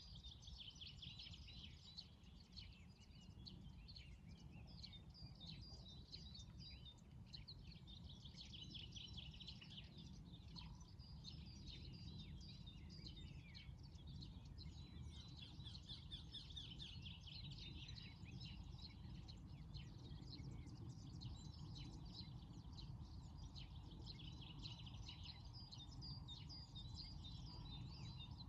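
Dawn chorus of several songbirds chirping and singing continuously, faint, over a steady low background rumble.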